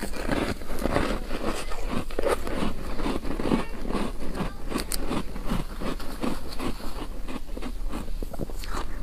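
A slab of soft, frosty freezer ice being bitten and chewed: a quick, irregular run of crisp crunches.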